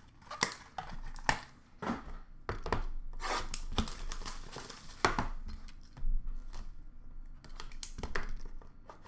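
Hands opening trading card packaging: irregular crinkling, rustling and tearing of wrapper and card stock, with sharp clicks and taps, one of the loudest about halfway through.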